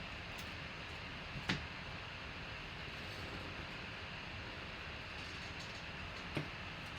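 Steady background hiss with two short, sharp taps, the first about a second and a half in and a fainter one near the end.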